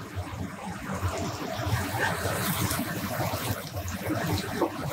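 Chopped onion and carrot frying in a pan, sizzling steadily while tomato sauce is spooned in from a jar and stirred with a wooden spoon.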